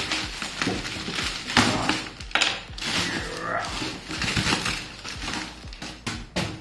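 Inflatable plastic air-column packaging crinkling and rustling as a boxed action figure is pulled out of it, with many short irregular crackles.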